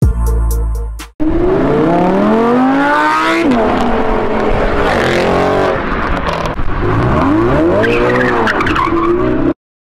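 Sports car engine accelerating hard, its pitch climbing steeply through the revs, dropping at a gear change about three and a half seconds in, then revving up and falling again near the end. It is preceded by a loud sound lasting about a second that cuts off abruptly.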